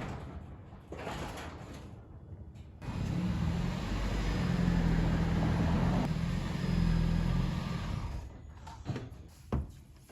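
Toyota Prius running for about five seconds in the middle, a steady low hum over a rushing noise, as the car creeps on its deflated tyres.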